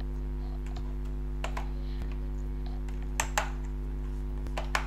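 Plastic keycaps being pulled off a Zebronics Transformer keyboard by hand and set down: scattered sharp clicks and snaps, a close pair a little past three seconds in and another pair near the end, over a steady low hum.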